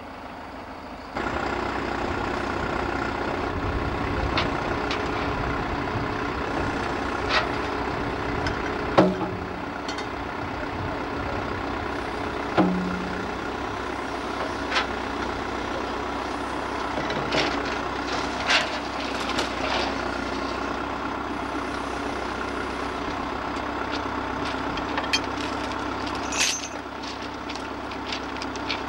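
Diesel engine of a wheeled excavator running steadily, with scattered metal clanks and knocks as the machine works on the track.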